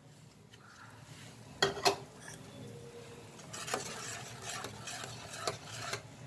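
A spoon stirring dal in a cooking pan, knocking against the pan about two seconds in and scraping around it in the second half, over a faint sizzle of the simmering dal.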